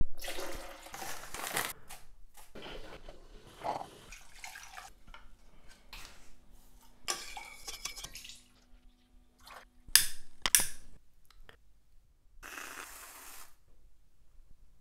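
Kitchen sounds in quick succession: water and brewed coffee poured, with dishes and glass handled. A low steady hum runs through the middle, two loud sharp clinks come about ten seconds in, and a short hiss sounds near the end.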